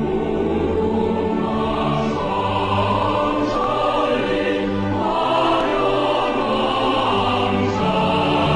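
Choral music with orchestra: sustained, chanting-style chords that shift every second or two.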